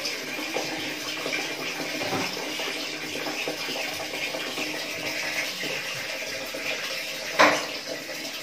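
Water running steadily, with one brief loud knock about seven seconds in.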